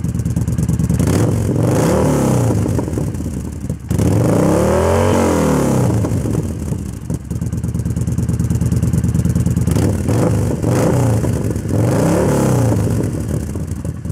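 Yamaha Bolt's air-cooled V-twin idling through an XB08 Extremeblaster polished stainless slip-on glass pack with 12 disc plates, on stock intake and ECU, blipped four times. The revs come about two seconds in, highest around five seconds in, and twice more near the end, each dropping back to idle.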